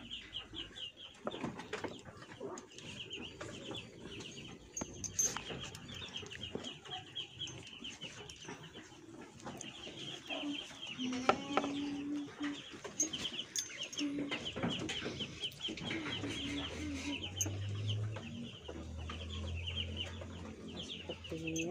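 Birds calling: runs of quick, high chirps throughout, with a few lower calls and scattered clicks around the middle.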